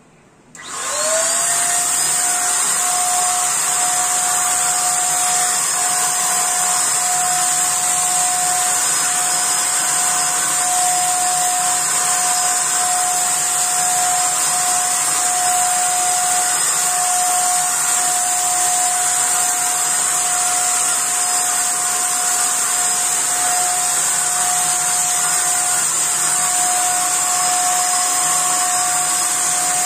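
Asian Paints TruCare handheld electric paint sprayer switched on about a second in, spraying distemper. Its motor spins up with a rising whine, then runs steadily with a constant whine over a rush of air.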